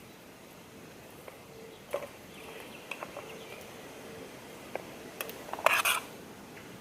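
A few light clicks and knocks of objects being handled, with a short scraping noise about five and a half seconds in, over faint outdoor background.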